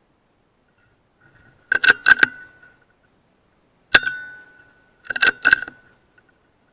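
Tuned Air Arms S200 PCP air rifle fired once, about four seconds in: a sharp crack with a short metallic ring. The bolt is worked twice, a quick run of three or four metallic clicks about two seconds in and again about a second after the shot.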